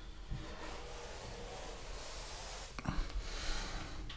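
Damp grout sponge rubbing over freshly grouted shower tile, a faint swishing, smoothing the grout line. A couple of soft knocks, the loudest about three seconds in.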